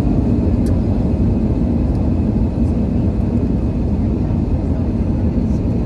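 Steady airliner cabin noise of an Airbus A320-family jet: an even low rumble of engines and airflow, heard from a window seat, without change.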